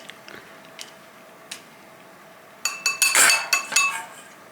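A few faint ticks, then a quick run of cutlery clinking against dishware with a bright ringing, about two and a half seconds in, while food is being served onto a plate.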